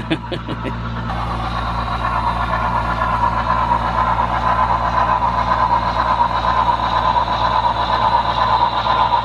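Digitally controlled HO-scale model locomotive's sound decoder playing a steady engine sound through its small onboard speaker. It grows louder over the first couple of seconds and then holds level, with a few light clicks at the start.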